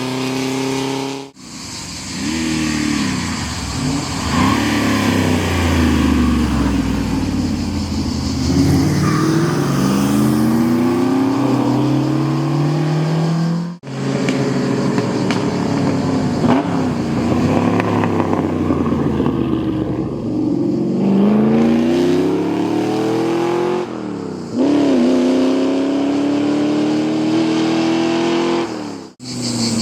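Historic racing car engines accelerating hard, revs climbing and dropping back again and again as they shift up through the gears. The sound breaks off abruptly twice, each time jumping to another run.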